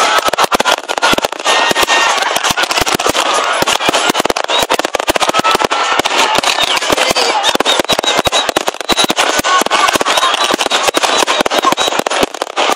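Aerial fireworks display: a rapid, unbroken stream of bangs and crackles as shells burst overhead.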